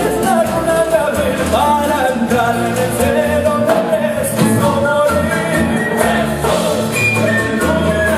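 Male voices singing with an ensemble of plucked strings, guitars and Spanish lutes, played live.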